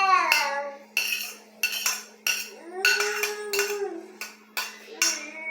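Kitchen utensils clinking and knocking against dishes, a run of about a dozen sharp, separate clinks.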